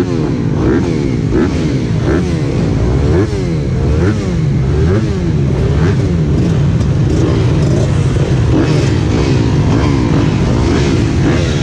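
A full start gate of MX2 motocross bikes revving on the line before the race, many engines blipping up and down in pitch over one another.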